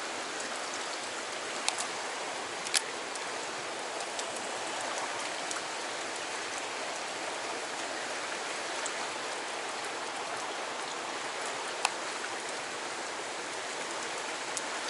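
Fast river current rushing past, a steady even hiss of churning water. A few sharp clicks stand out, the loudest about three seconds in and another near the twelve-second mark.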